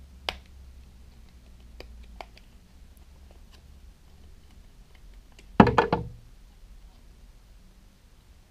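Hard plastic housing of a cordless LED work light being handled and pressed together: a sharp click just after the start, a few faint ticks, then a quick clatter of several plastic clacks a little past the middle.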